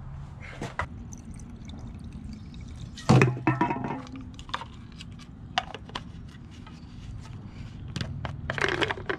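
Hands working the plastic tank cap of a Husqvarna 440 chainsaw: scattered clicks and knocks as the cap is unscrewed and handled, a louder clatter about three seconds in, and a quick run of clicks near the end, over a steady low hum.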